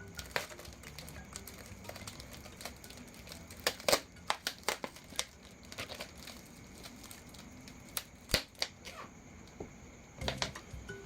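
Plastic packaging and packing tape crinkling and tearing as a taped-up plant shipment is pulled open, with clusters of sharp crackles about four seconds in and again near eight seconds.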